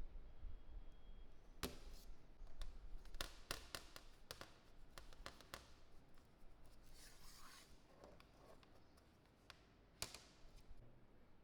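Small hard objects being handled: a run of light clicks and taps, then a short scraping rub about seven seconds in, and one more sharp click near the end.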